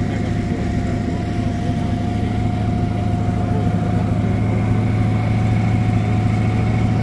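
Off-road vehicle engine running steadily at an even speed, with a steady whine above the low engine hum.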